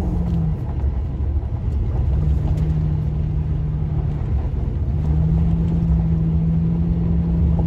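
Toyota Tacoma pickup driving on a gravel road, heard from inside the cab: a steady engine hum over a continuous low rumble of tyres on gravel. The hum drops out briefly about four seconds in.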